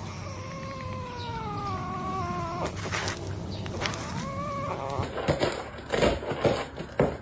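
A cat yowling: one long drawn-out yowl that slowly falls in pitch, then a shorter one. From about five seconds in comes a run of loud clattering knocks.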